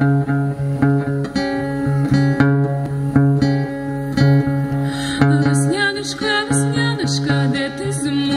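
Two acoustic guitars picking a fast, repeating intro figure over steady bass notes, with a woman's singing voice coming in about five seconds in.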